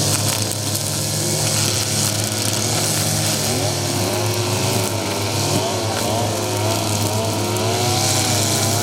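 A motor running steadily, with a strong low hum and a high hiss.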